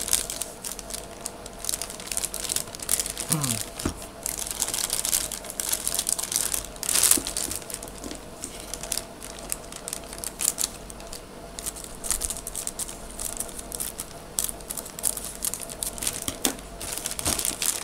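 Clear plastic bags crinkling and rustling in the hands as they are opened to get at the figure's parts, with irregular crackles throughout.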